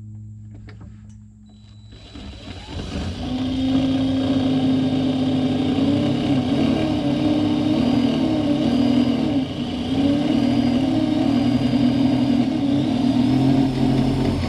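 Drill motor driving a screw through the front edge of a metal gutter cover: it starts about two seconds in and runs for about twelve seconds, its pitch wavering up and down under load. Little down pressure is on the screw, because the user is leaned far out.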